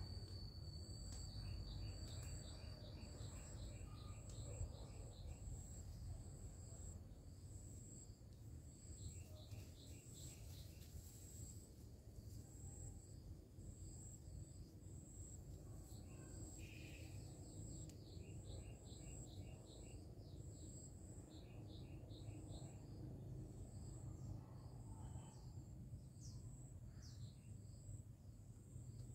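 Garden ambience: insects chirping steadily with a high, evenly pulsing note, while a bird calls several times in quick runs of short repeated notes, over a low background rumble.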